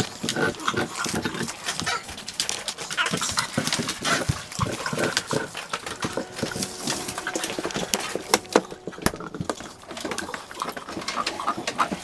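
An American Bully dog chewing and crushing a plastic bottle, which gives rapid, irregular crackles and crunches of plastic. A few sharper cracks come about three-quarters of the way through.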